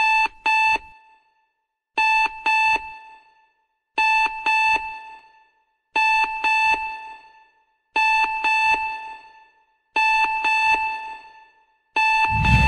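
Electronic alarm clock beeping: pairs of short, high beeps, a pair every two seconds, each with a fading echo. Near the end a deep low rumble swells in.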